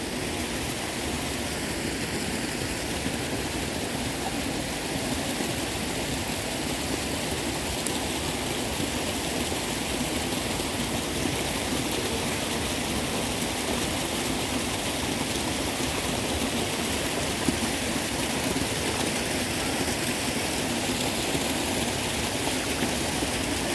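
Steady rushing of running water, an even noise without break.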